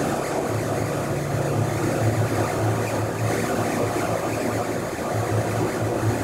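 Live electronic music: a low, pulsing drone with a grainy, noisy texture above it.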